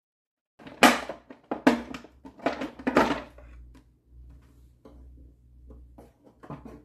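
Hard plastic clattering and scraping as the carpet cleaner's upper housing cover is pried loose and lifted off: four loud clacks in the first three seconds, then lighter knocks and clicks.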